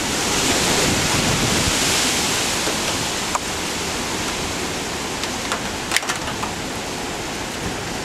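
Steady rushing noise of hurricane wind and surf, with a few sharp clicks partway through.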